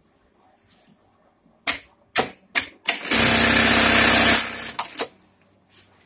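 Juki LK-1900 computer-controlled bartacking machine sewing a bartack. Several sharp clacks come as the work clamp drops, then a loud burst of rapid stitching lasting about a second and a half, then a click as it stops.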